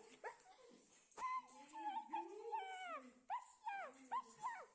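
Dog whining: a run of high whimpers, each rising then falling in pitch, starting about a second in with one longer whine and then several short ones in quick succession. A single knock sounds just as the whining begins.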